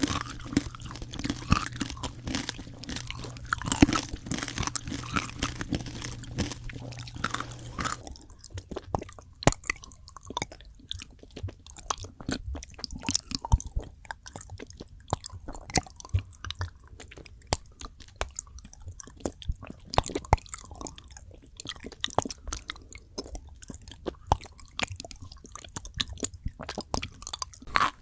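Close-miked crunching and chewing of crisp food, many quick irregular bites. About eight seconds in, a low steady hum behind it drops away abruptly and the crunching continues.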